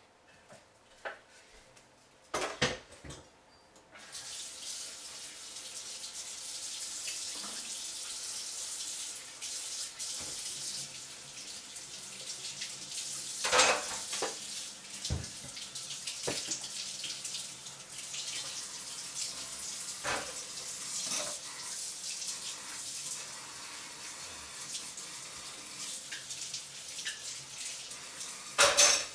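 A few knocks, then a kitchen tap is turned on about four seconds in and runs steadily into the sink while dishes are washed under it. A plate and a wooden cutting board clatter against the sink now and then, loudest near the end.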